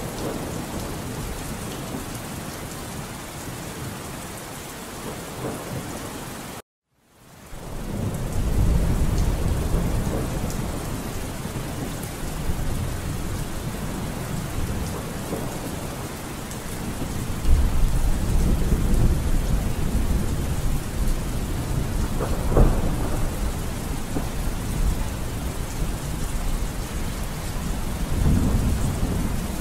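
Thunderstorm ambience: steady rain with low rolls of thunder that swell several times, the strongest starting about 17 seconds in. The sound breaks off to silence for about half a second roughly seven seconds in, then resumes.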